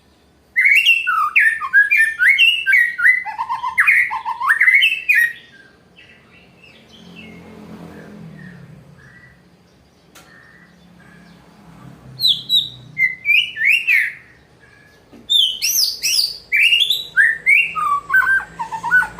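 White-rumped shama (murai batu) singing a challenge song: fast, varied whistled phrases that jump and slide in pitch. The song comes in three bouts, with a pause of several seconds after the first.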